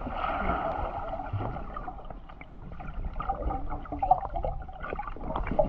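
Water gurgling and lapping around a Sea-Doo jet ski moving slowly, over the low rumble of its engine at idle. The splashing is strongest in the first second and eases off about two seconds in.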